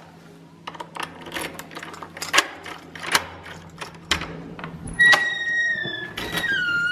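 A run of sharp clicks and knocks, then two high squeaks about a second each, the second dipping in pitch and rising again.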